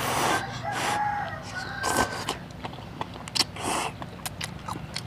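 Hot noodles slurped from a bowl several times in short pulls, with a chicken calling briefly in the background during the first two seconds.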